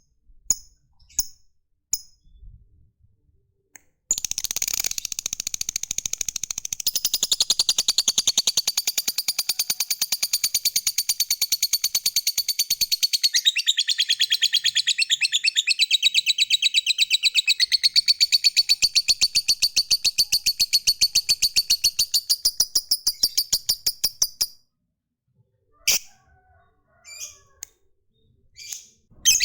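Lovebird giving a few single sharp chirps, then, about four seconds in, a long, very rapid, unbroken chattering trill ('ngekek panjang') that runs for about twenty seconds and stops suddenly, followed by a few more scattered chirps. This long ngekek is the song that lovebird keepers prize.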